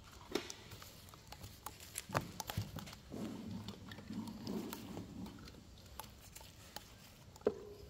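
Irregular knocks and taps from a resin jug and brush being handled while fibreglass mat is wetted out on a boat mould, with a stretch of low, rough rustling noise from about three to five seconds in.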